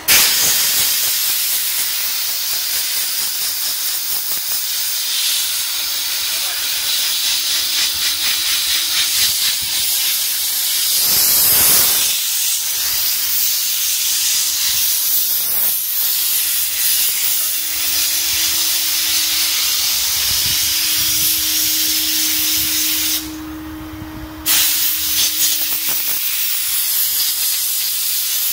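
Steam cleaner's handheld nozzle jetting steam onto a car floor mat: a loud, steady hiss that starts abruptly, cuts out for about a second near the end, then resumes. A faint steady hum runs underneath.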